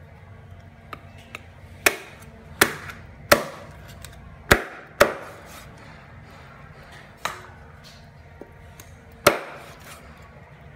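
Meat cleaver chopping through raw chicken on a wooden chopping board: sharp chops, five in quick succession, then a lighter one and a final heavy one after a pause.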